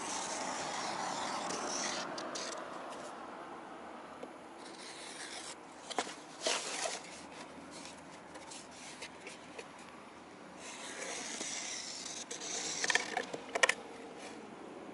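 A marker pen rubbing across plywood in two long strokes, one at the start and one about ten seconds in, as circles are drawn on the sheet. Between the strokes and near the end come a few sharp clicks and taps as the marker and board are handled. The loudest tap is near the end.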